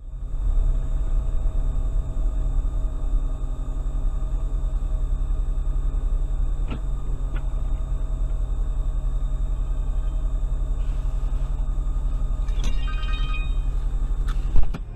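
Low, steady engine and road rumble inside a car, picked up by a dash camera's microphone. Two faint clicks come in the middle, a short run of ringing tones near the end, and a sharp knock just before it ends.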